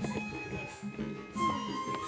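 Instrumental background music with a steady rhythm and held melody notes.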